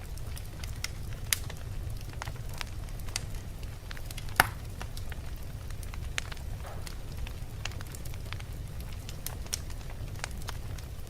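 Fire burning in a fireplace: steady crackling with scattered sharp pops over a low rumble, one loud pop a little over four seconds in.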